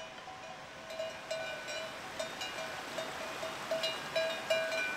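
Cowbells on grazing cattle clanking, with many irregularly spaced metallic clanks, several a second, as the cows move their heads.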